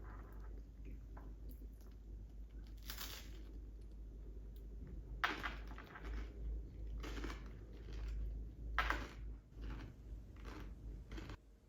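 A handful of short crunches, irregular and about a second or two apart: crunchy breakfast food being bitten and chewed.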